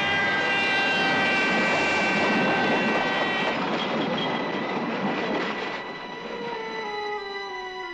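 Cartoon soundtrack: a loud held chord of many steady tones over a noisy rush. It fades after about six seconds into falling notes.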